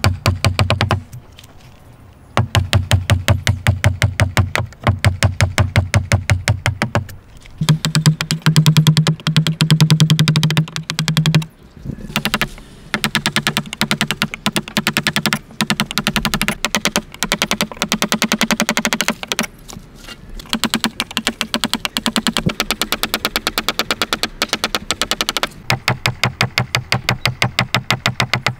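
Steel chisel being driven into a hardwood block by rapid light taps, a quick even run of sharp clicks with a low wooden knock under them, in bursts of a few seconds separated by short pauses.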